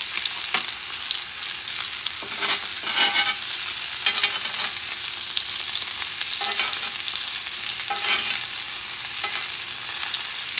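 Bison tomahawk steak sizzling with butter on a hot cast iron grill pan, a steady hiss. A metal spoon scrapes and taps against the pan and bone a few times.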